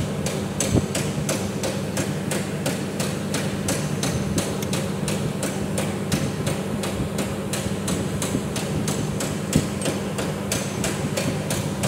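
Even, rhythmic ticking or knocking, about three to four strikes a second, over a steady low hum.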